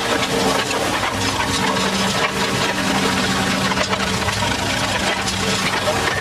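Tractor engine running steadily, with a dense rattling clatter of many small clicks throughout.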